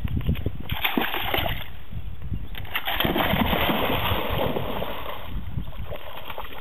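Water splashing and sloshing as a wet border collie wades out of shallow pond water, in two spells: briefly about a second in, then longer from about three to five seconds in.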